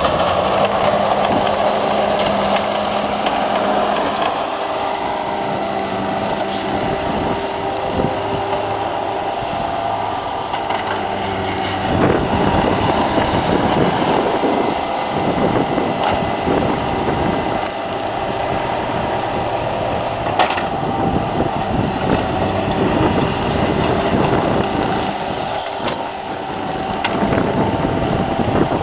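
Cat 247B compact track loader's diesel engine running steadily under load with the rattle of its tracks while plowing snow, with an occasional sharp knock or clank.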